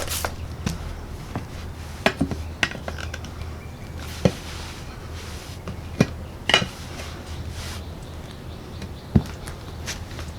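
Metal tools clinking and knocking against a lawn tractor wheel rim while the bead of a new tire is worked over the rim edge: scattered sharp clinks a second or two apart, over a low steady hum.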